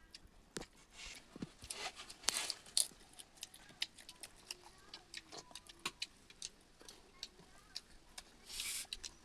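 Close-up eating sounds: chewing with many wet mouth clicks and smacks, and a couple of short hissy slurps or breaths.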